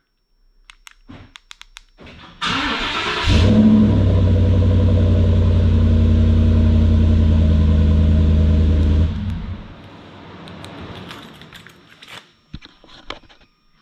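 Cold start of a stock Ford F-150's 5.0-litre V8 through a Flowmaster 44 single-inlet, dual-tailpipe muffler. After a few light clicks, the starter cranks about two seconds in and the engine catches. It runs loud and steady for about six seconds, then quiets sharply about nine seconds in. This is the first start after the install, and no exhaust leaks were found.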